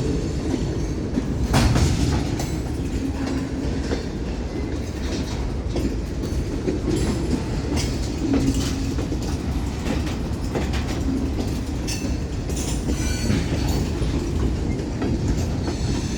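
Freight cars of a Union Pacific manifest train rolling past: a steady low rumble of wheels on rail, with clicking and a few sharp clanks as the wheels cross rail joints.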